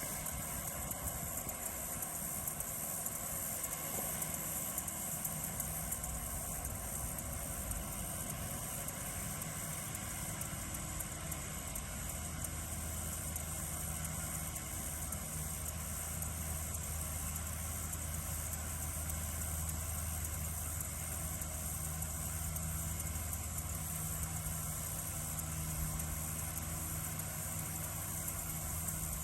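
Tractor engine running steadily while cutting hay, its low hum growing stronger about halfway through, over a steady high chirring of crickets.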